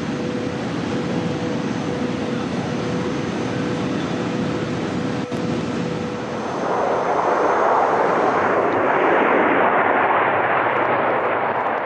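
TGV high-speed train running at over 570 km/h: first a steady rushing noise with a faint steady hum, then a brief click about five seconds in. From about six and a half seconds the rushing grows louder and fuller as the train passes trackside at record speed.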